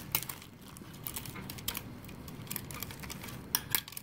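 Metal clothes hangers clicking and scraping against a clothing-rack rail as dresses are pushed along it: a string of light, irregular clicks, with two louder clicks close together near the end.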